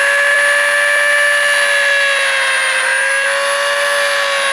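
Small handheld rotary tool with a cutting disc running at speed: a loud, steady, high-pitched whine as the disc cuts into a plastic scooter mudguard.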